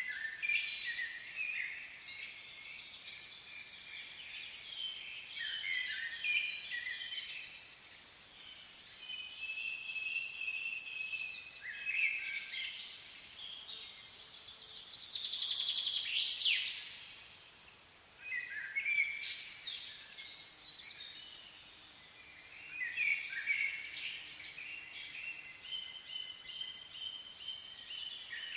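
Birds singing: phrases of short, high whistled notes that come and go every few seconds over faint outdoor background noise.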